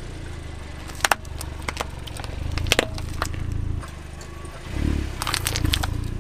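Car tire rolling over and crushing plastic capsule balls filled with foam beads, with sharp cracks of breaking plastic about a second in and again near three seconds, over the low hum of the car's engine. Near the end the tire rolls onto birthday candles stuck in a foam block, with a short burst of crackling.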